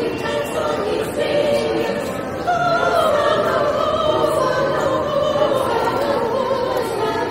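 A vocal group singing in harmony, the voices holding long notes. The singing grows louder about two and a half seconds in.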